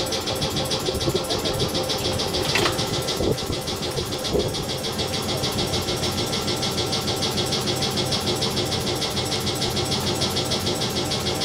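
Izuhakone Railway ED32 electric locomotive standing with its auxiliary machinery running, a steady, fast, even beat. A brief hiss comes about two and a half seconds in, then two knocks.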